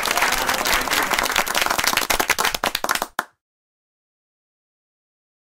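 Recorded applause, many hands clapping, thinning to a few scattered claps and cutting off about three seconds in.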